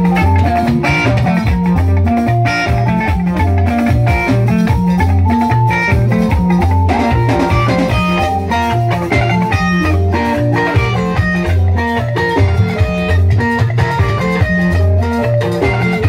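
Live band playing an instrumental passage: electric guitars over a repeating bass line and drums, with no singing.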